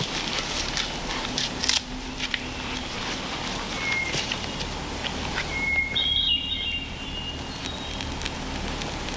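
Campfire crackling and popping, mostly in the first couple of seconds. A songbird whistles a few short notes, each held at one pitch, near the middle.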